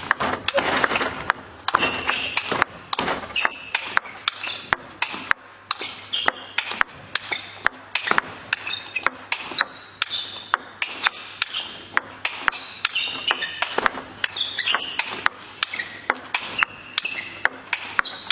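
A long table tennis rally: the ball clicks in quick alternation off the players' bats and the table, a sharp click every half second or so, with no break.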